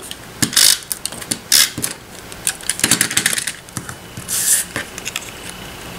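Snail tape-runner adhesive dispenser clicking and rasping as it lays adhesive on cardstock, mixed with cardstock being handled and pressed down. A string of short clicks and brief rasps, the longest about four and a half seconds in.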